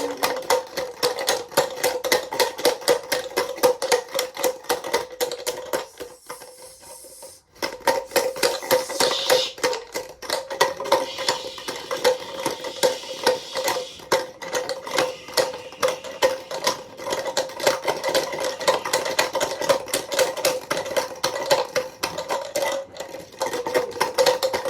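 Washing machine running with a steady motor hum and a fast, continuous clattering rattle. It cuts out for about a second and a half around six seconds in, then starts again.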